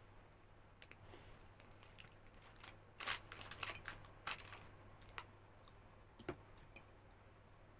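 Faint crinkling and crackling of an empty plastic Choco Monaka ice cream wrapper as it is folded and set down in a ceramic dish. The sound comes as scattered crackles, busiest around the middle, with a few lone clicks after.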